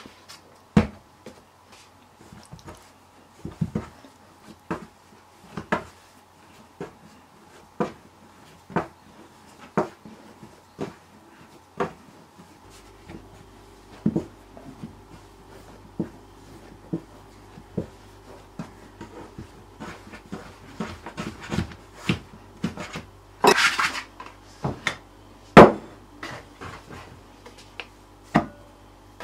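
Bread dough being handled and shaped by hand on a work surface: a series of soft knocks and slaps, about one a second at first and then more irregular. A cluster of louder knocks comes past the middle, and a single loud knock follows a couple of seconds later.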